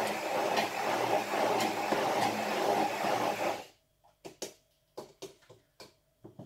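Hand-held immersion blender running steadily in a tall beaker, puréeing orange segments and zest into a pie filling. The motor cuts off suddenly a little over halfway through, followed by several short light knocks and taps.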